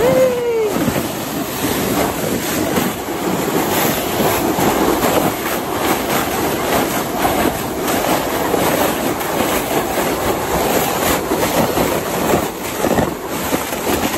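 Plastic snow sled sliding down a packed snow slope: a steady rushing scrape of the sled over the snow, mixed with wind on the microphone. Right at the start there is a brief falling cry.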